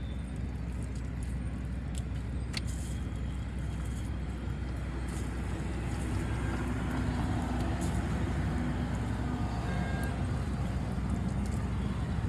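Steady low rumble of street traffic, with a vehicle engine tone passing through around the middle and a few faint clicks.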